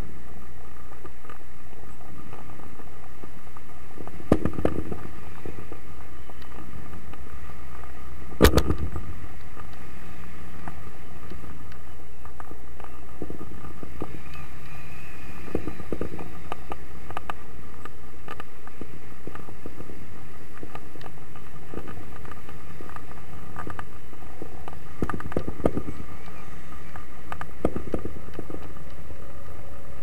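Wind rushing steadily over an action camera's microphone from a paraglider's airspeed in flight. Several sharp knocks on the camera break through it, the loudest about eight seconds in and a few more near the end.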